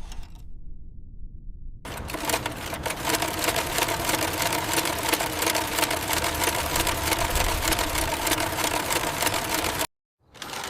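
Sewing machine running at speed: a rapid, even clatter of the needle mechanism over a steady motor hum. It starts about two seconds in after a low rumble and cuts off abruptly near the end.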